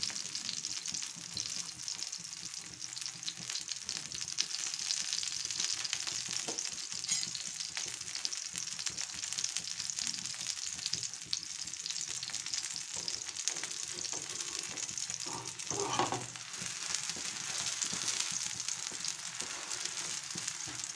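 Semolina-and-vegetable batter (suji chilla) frying in ghee and oil on a non-stick tawa: a steady, high-pitched sizzle, with a short, lower sound about three-quarters of the way through.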